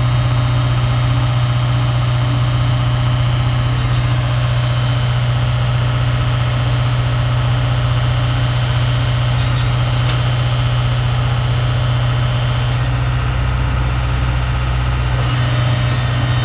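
Diesel engines of two excavators, a JCB and a Tata Hitachi, running steadily while they dig in thick mud: a loud, even, low drone.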